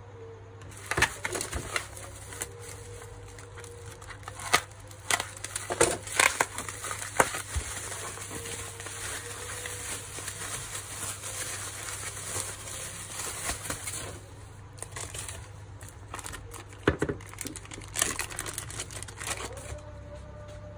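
Plastic bubble wrap crinkling and rustling as it is handled and unwrapped by hand, with sharp crackles and pops. The rustling stops about two-thirds of the way in, leaving a few scattered clicks and taps.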